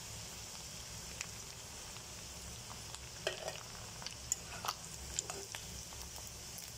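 Boneless chicken pieces deep-frying in hot oil with a steady sizzle, and a few sharp clicks about halfway through.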